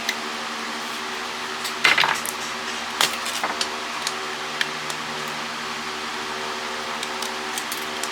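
A few sharp clicks and knocks of plastic parts as a cordless phone is handled and taken apart, the loudest about two and three seconds in, over a steady machine hum.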